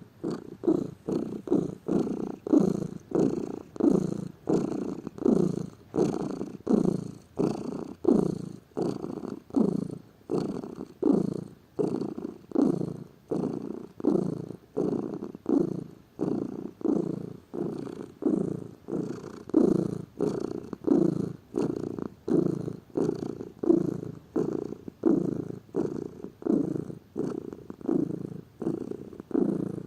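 Domestic cat purring steadily, the purr swelling and fading in an even rhythm of about three pulses every two seconds as it breathes in and out.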